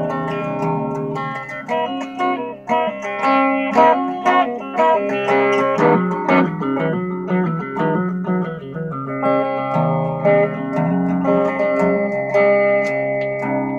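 Electric guitar played through a hand-built amp on a modified Smokey amp circuit, with a Behringer BSY600 bass synth and an Ibanez DE7 delay ahead of it, into a 15-inch bass cabinet. A steady run of picked single notes, several a second, with a lower bass line sounding under them.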